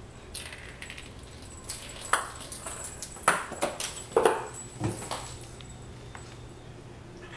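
A ping pong ball clattering and bouncing across a hard vinyl tile floor as a kitten bats at it and chases it. It makes an irregular run of light clicks and taps, a few of them sharp, over about four seconds.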